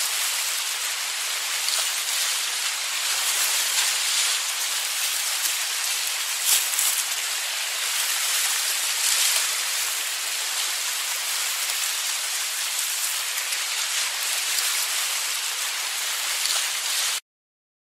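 Ocean surf washing steadily on a beach, a constant hiss of breaking waves with a few slightly louder swells. It cuts off abruptly near the end.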